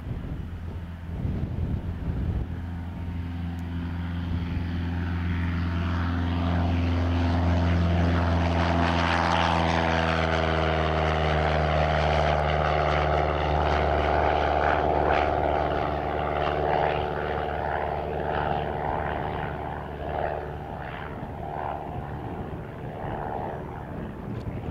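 Cessna 172 single-engine propeller plane at full takeoff power. Its engine and propeller drone grows louder through the takeoff run and liftoff, drops in pitch as the plane goes by, then fades as it climbs away.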